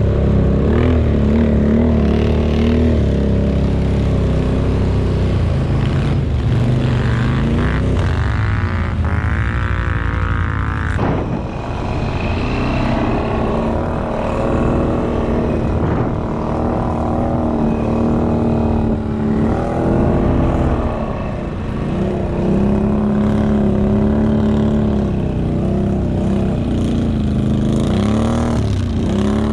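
ATV engines running and revving, their pitch rising and falling repeatedly.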